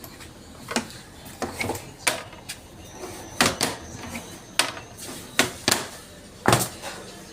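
About a dozen irregular sharp knocks and clicks of hard parts and tools being handled while a washing machine is worked on.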